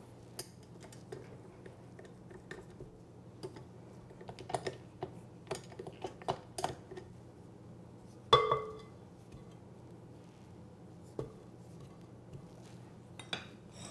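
Silicone spatula scraping dough off a stand mixer's flat beater and knocking against the glass mixing bowl: scattered soft clicks and scrapes, with one louder clink about eight seconds in that rings briefly.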